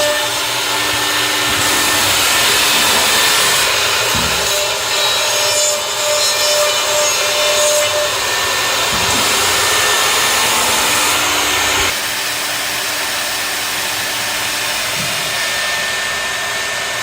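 CNC dovetailing machine running, its router cutters machining dovetail joints in wood: a steady high cutting whine and hiss whose pitch and strength shift several times as the cuts change, with a couple of faint low thumps.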